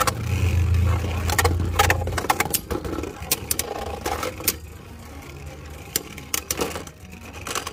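Beyblade Burst spinning tops battling in a plastic stadium. A steady spinning hum for the first two seconds, then repeated sharp clacks as the tops collide, growing quieter as they slow down.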